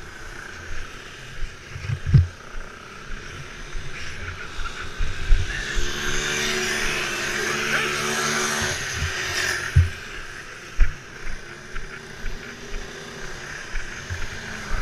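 Racing go-kart engines passing on the track, one swelling to its loudest from about six to nine seconds in and then fading away. Occasional sharp low thumps and knocks on the microphone.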